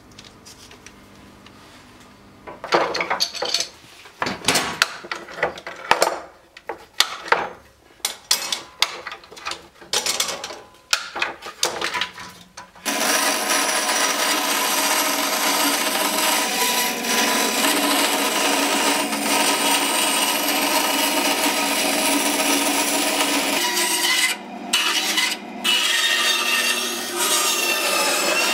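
Irregular scraping strokes of hand work on wood. About halfway through, a bandsaw takes over, running steadily as it cuts thin wooden pieces, with two short dips near the end.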